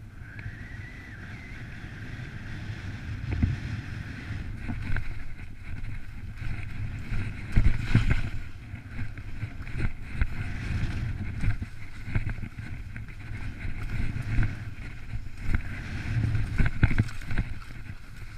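Skis scraping and chattering over wind-crusted snow, with wind buffeting the microphone as a steady rumble and irregular louder scrapes and knocks.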